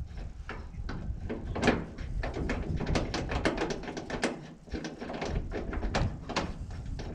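Irregular metallic clicks and knocks as a hinge pin removal tool is fitted, wound up and tapped on an early Ford door hinge, the knocks coming thickest in the middle.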